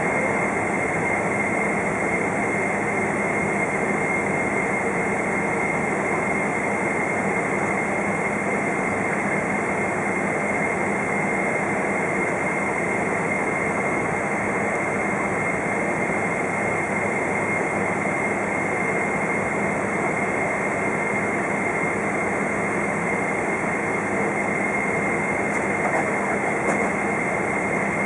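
Cabin noise inside a Boeing 777-200 taxiing, its GE90 jet engines running at idle: a steady high whine over an even rushing hiss and low hum.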